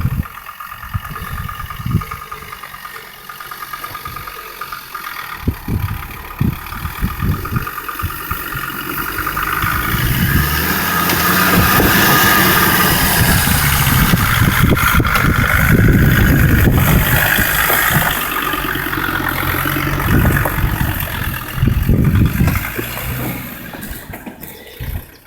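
Land Rover Defender 130 engine running under load off-road. It grows louder about a third of the way in, holds there for some ten seconds, then eases off near the end. Short low knocks sound throughout.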